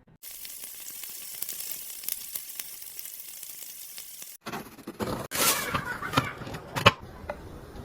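A steady crackling hiss, like something sizzling. After an abrupt cut about four seconds in, it gives way to a run of clicks and rustling handling noises, with one sharp click near the end.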